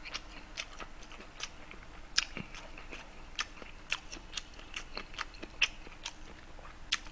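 Close-miked chewing of a mouthful of gimbap, rice rolled in seaweed with pickled radish and burdock: a run of irregular soft clicks and smacks from the mouth.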